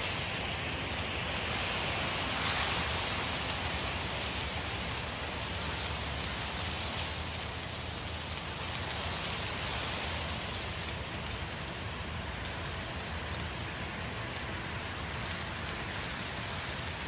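Forest fire burning: a steady, dense crackling over a low rumble, a little louder about two and a half seconds in.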